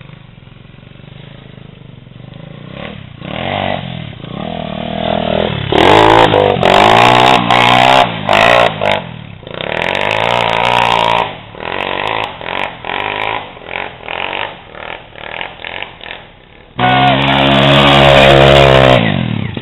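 Dirt bike engine revving up and down over and over as it rides the trail. It is loudest and steadiest for about two seconds near the end as a bike passes close by, then drops off suddenly.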